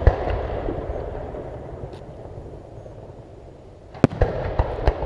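Aerial firework shells bursting: one bang just after the start, followed by a rumbling echo that slowly fades. From about four seconds in comes a quick run of four sharp bangs.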